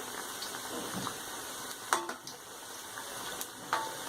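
Sweet corn pakoras deep-frying in hot oil, a steady bubbling sizzle. Two sharp clicks cut through it, one about two seconds in and one near the end, the second with a brief ring.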